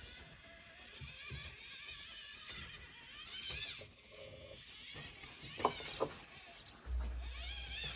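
Small electric motor and gears of a 1/24-scale SCX24 RC rock crawler whining, the pitch rising and falling with the throttle as it crawls over rocks. A few sharp clicks come past the middle, and a low rumble sets in near the end.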